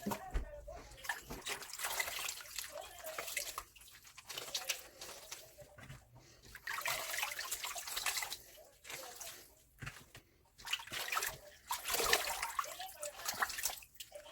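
Tap water running and splashing in a sink in irregular gushes, with short breaks.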